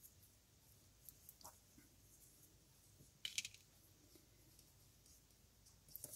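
Near silence with a few faint, brief rustles and light clicks of thread and a plastic tatting shuttle being handled as double stitches are worked; the clearest comes about three seconds in.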